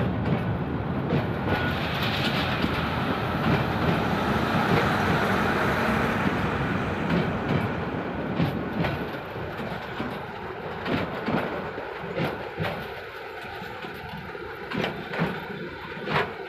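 Bangladesh Railway intercity passenger coaches rolling past close by, their wheels clattering over the rail joints. About nine seconds in the rumble eases, leaving sharper, spaced wheel clicks and a faint wavering whine.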